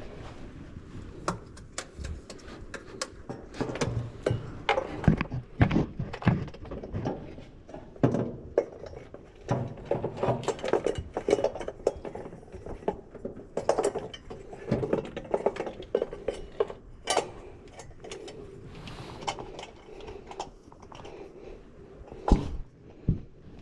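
Irregular clinks, knocks and clatter of metal parts and tools being handled during work on a fuel system, with a sharp louder knock near the end.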